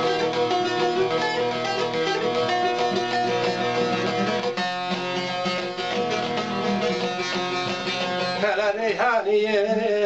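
Turkish folk music: a bağlama (long-necked saz) plucked in an instrumental passage between verses. A man's singing voice comes in near the end.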